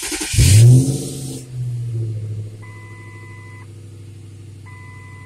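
A last deep bass note from the car's subwoofer dies away in the first second or so. After it, the Lincoln LS's engine idles steadily while a two-tone dashboard warning chime sounds twice, each about a second long.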